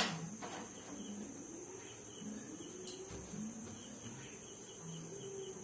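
Quiet kitchen background: a faint steady high hiss with faint regular chirping, about three a second, and one light click about three seconds in.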